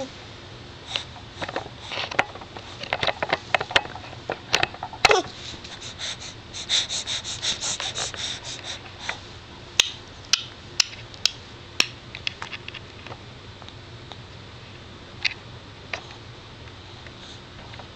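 A baby clicking with his tongue and mouth: irregular sharp clicks, a quick run of them about seven seconds in, then fewer and further apart.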